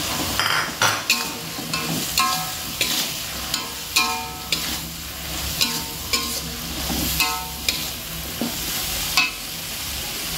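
A metal spatula scraping and clanking against an aluminium wok while lamtoro, bean sprouts and tempe are stir-fried, over a steady sizzle. About a dozen irregular strokes, each leaving the wok ringing briefly.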